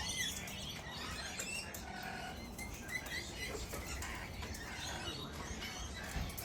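Wild parrots calling, with many short chirps and squawks overlapping throughout.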